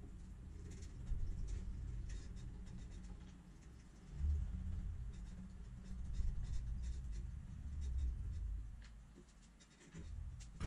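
Paintbrush strokes spreading contact cement along the edges of a plywood panel: a string of short scratchy brushing sounds over a low rumble. A single knock near the end.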